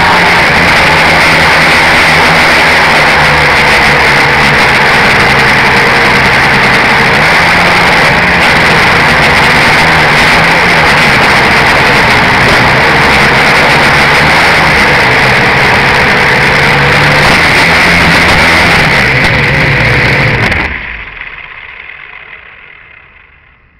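A quadcopter's electric motors and propellers whirring loudly right beside its onboard camera, the pitch wavering as the throttle shifts. About twenty seconds in the motors spin down and the sound dies away as the drone comes to rest on the ground.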